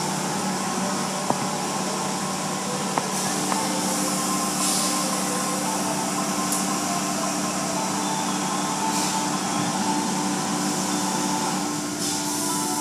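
Automatic car wash heard from inside the car: water jets spraying steadily against the windshield and glass over a constant machine hum, the spray swelling louder a few times. A few light ticks come in the first few seconds.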